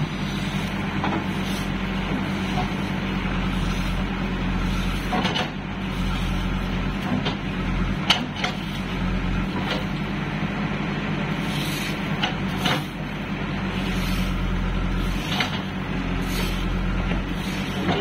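JCB backhoe loader's diesel engine running steadily as the backhoe digs, with a few sharp clanks from the bucket and arm scattered through, the loudest about eight seconds in.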